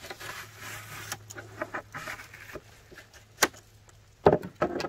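Short knocks and clicks of a fillet knife and gloved hands on a plywood table as a salmon fillet is skinned. The loudest are a sharp knock about three and a half seconds in and a cluster of knocks just after four seconds. A faint low hum sits under the first second.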